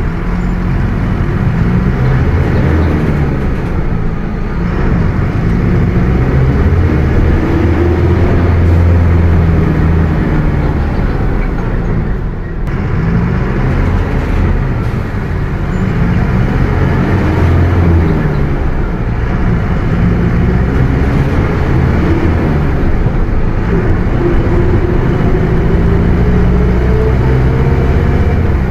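Mercedes-Benz OF 1721 BlueTec 5 bus under way. Its diesel engine note rises and falls several times as it pulls and changes gear, with a brief drop about twelve seconds in. A whine climbs in pitch near the end: the differential growling.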